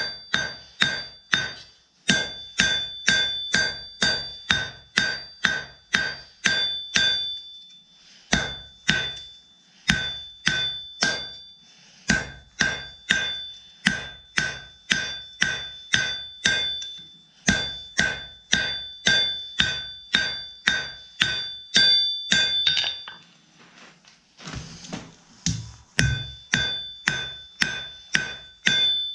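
Hand hammer striking hot steel on an anvil in quick, even runs of about three blows a second, the anvil ringing with each blow, as the stock is drawn out with a lighter hammer. The runs stop briefly a few times, with a longer break about three quarters of the way through.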